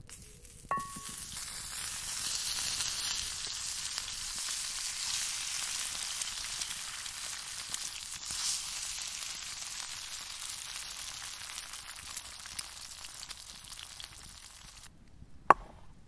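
A steady, high hiss that starts just after a sharp metallic clink and stops abruptly near the end, followed by a single sharp click.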